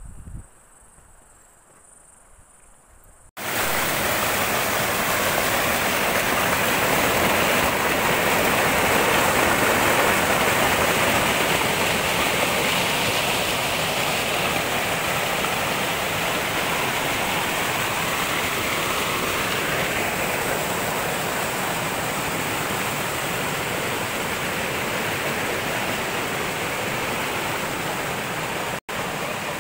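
Mountain stream cascading over rocks in a steady, loud rush of water. It starts abruptly a few seconds in after a quiet stretch and cuts out briefly near the end.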